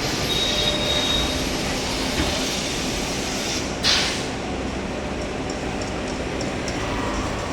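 Express train running on the rails, a steady rumble of wheels and carriages, with a brief high wheel squeal near the start and a short hiss about four seconds in.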